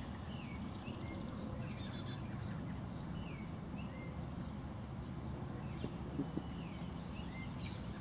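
Quiet outdoor ambience: an insect chirps steadily about three times a second over a low steady background noise, with a few short bird chirps.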